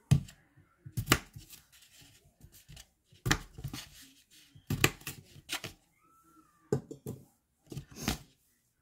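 Kitchen knife cutting red potatoes on a paper plate over a stone countertop: irregular sharp knocks as the blade goes through the potato and strikes the plate, some coming in quick pairs.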